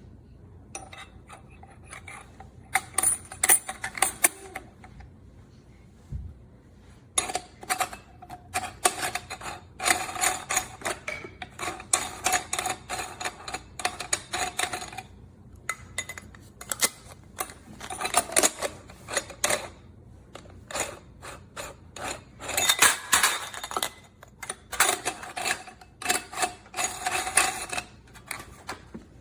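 Rapid clicking, clinking and rattling of hard parts being handled, in several bursts a few seconds long with short quiet gaps between them.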